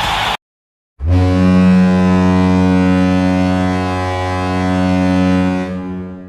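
San Jose Sharks hockey goal horn: a loud, low-pitched horn sounding one long steady blast of about five seconds, starting about a second in and fading out near the end.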